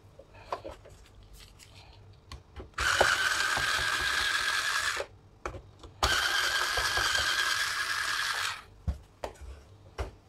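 Cordless electric screwdriver running twice for about two seconds each, a steady whine, backing out the screws that hold the lamp unit in an Epson EB-1970W projector. Light clicks and knocks of handling come before and after.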